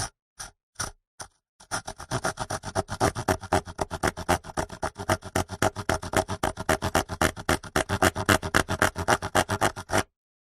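Hand saw cutting wood: a few slow starting strokes, then after a short pause fast, even back-and-forth strokes, several a second, that stop abruptly near the end.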